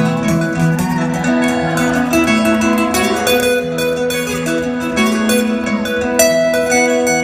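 Instrumental break of a live country song played on plucked acoustic string instruments, guitar among them, with no singing.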